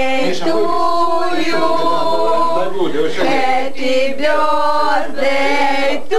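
A group of people singing together in long, drawn-out notes, with short breaks between phrases.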